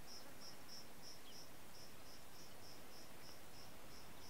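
Cricket chirping steadily, one short high chirp about three times a second, over faint outdoor hiss.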